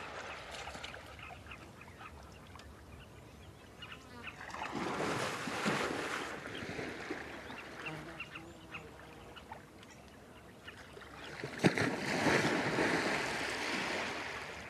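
An African bush elephant bull wading and swimming in a river, water splashing and sloshing around its body. There are two louder stretches of splashing, about five seconds in and again from about eleven and a half seconds, the second opening with a sharp knock. Between them the water swirls more quietly.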